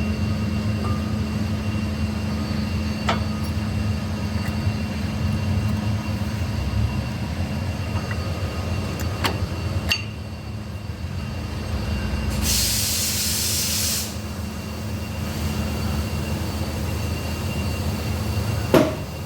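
Steady low mechanical hum during a brake job, with a few sharp metallic clicks from tools and a burst of spray hiss lasting about a second and a half, midway.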